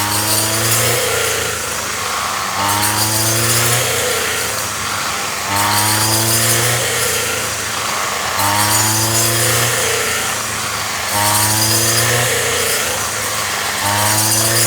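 Mini rice threshing machine running. A low hum rises slightly in pitch and then gives way to a rattling hiss, over and over, about every three seconds.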